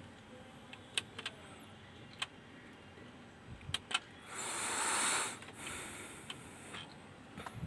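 Small sharp clicks and taps of tools working on an amplifier circuit board. About four seconds in comes a hiss lasting just over a second, the loudest sound, which then trails off more faintly.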